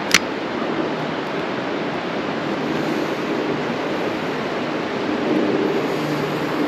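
Steady rush of flowing stream water, with one sharp click just at the start.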